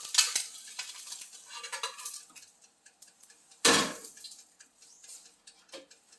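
Cooking utensils scraping and clinking against a frying pan and dishes while fried eggs are served. A single loud knock comes a little past halfway through, followed by faint light clicks.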